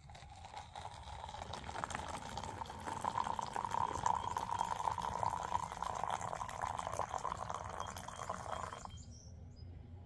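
Coffee being poured into a cup in a steady stream, its pitch rising a little as the cup fills, stopping abruptly about nine seconds in.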